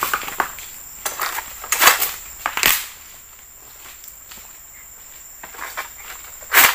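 Sharp crunching and crackling of dry oil palm fronds and litter as a long-poled palm harvesting sickle works the tree and the harvester steps round it: several crunches in the first three seconds, a lull, then the loudest crunch near the end. A steady high insect drone runs underneath.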